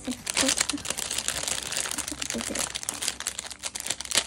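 Thin clear plastic packaging bag crinkling as hands handle it, a continuous crackle of many small rustles with a louder crackle near the end.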